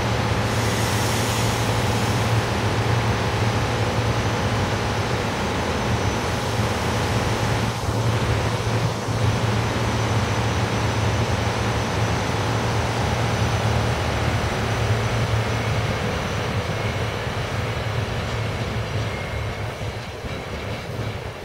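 SEPTA Silverliner IV electric multiple-unit commuter train running past: a steady rumble and low hum of wheels and traction equipment, with two knocks about a second apart midway, fading as the train pulls away near the end.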